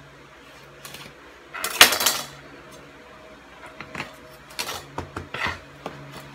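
Metal kitchen utensils, a knife and a cheese grater, clattering and scraping against a stainless steel pot, with one loud scrape about two seconds in and several lighter clinks and knocks later.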